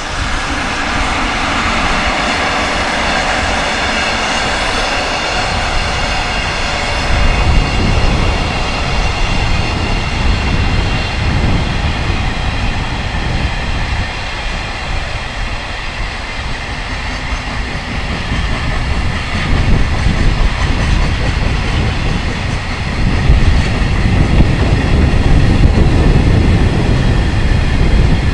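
Freight train hauled by an electric locomotive passing on the track, its wagons rolling and rumbling by, with a steady high whine fading out after about seven seconds. Strong wind buffets the microphone, heaviest near the end.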